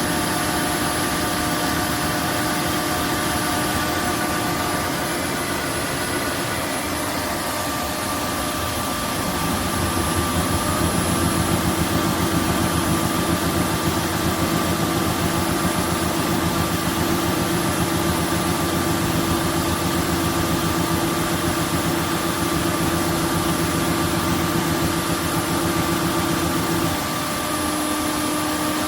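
Roborock F25 wet-dry vacuum running its self-cleaning cycle in the dock: a steady motor hum with a few whining tones. It grows louder and heavier about nine seconds in and drops back shortly before the end.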